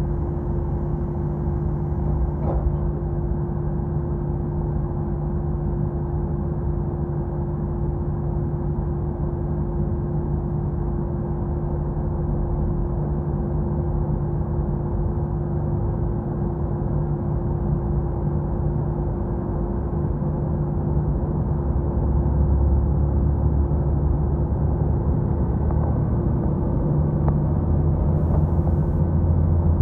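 KiHa 66 diesel railcar running, heard from inside the car: a steady rumble of engine and wheels on the rails with a constant hum. The low engine sound grows louder about two-thirds of the way through.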